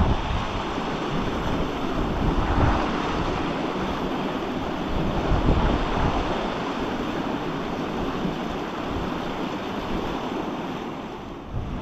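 Steady rushing of a flowing river, with wind buffeting the microphone in irregular gusts.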